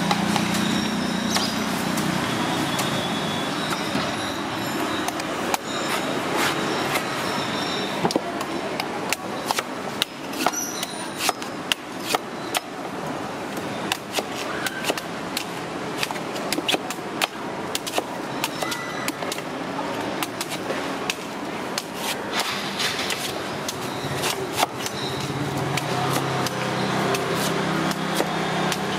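Long knife chopping and shaving the husk off a young green coconut on a wooden chopping block: irregular sharp knocks and clicks, sometimes several a second, over a steady background hum.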